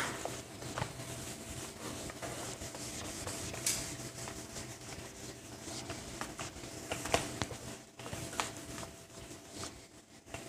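Felt whiteboard duster rubbing across a marker whiteboard, wiping it clean in soft scrubbing strokes, with a few short sharp clicks along the way.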